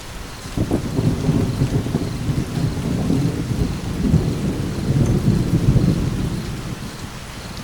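Steady rain with a roll of thunder that rumbles in about half a second in, peaks in the middle and dies away near the end.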